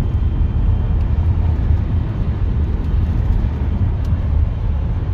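A steady, fluttering low rumble.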